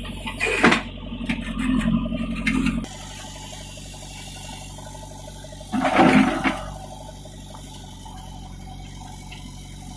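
Diesel engine of a JCB 3DX backhoe loader running, working hard with loud rushing and clattering for the first few seconds, then dropping to a steady idle about three seconds in. A loud rushing burst lasting under a second comes about six seconds in.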